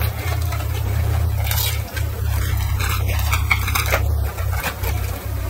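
A trading-card pack wrapper being ripped open and crinkled, a run of short crackles and tearing sounds, over a steady low hum.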